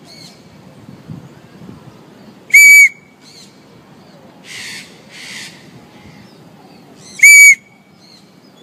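Two short, loud, steady blasts on a whistle, one about two and a half seconds in and one near the end. Between them come two quieter short rasping noises.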